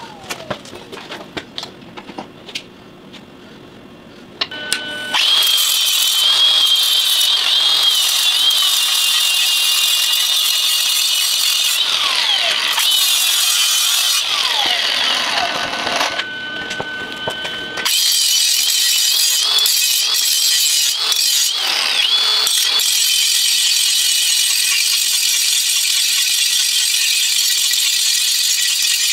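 Angle grinder cutting into a metal wheel rim, throwing sparks: a loud, high-pitched grinding screech over a wavering whine. It starts about five seconds in, and the whine falls away as the grinder slows around the middle. It then bites in again and grinds steadily.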